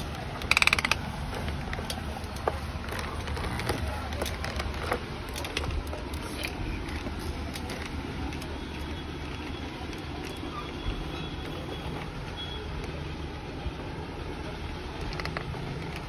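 Clicking and knocking of a hand-moved plastic toy excavator arm: a quick, loud rattle of clicks about half a second in, then scattered single clicks and plastic knocks as the arm and bucket are worked.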